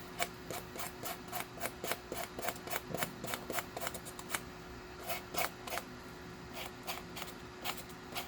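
Quick hand-abrasion strokes, several a second with brief pauses, smoothing out the holes made in a vintage Leslie upper rotor to prepare it for a new deflector.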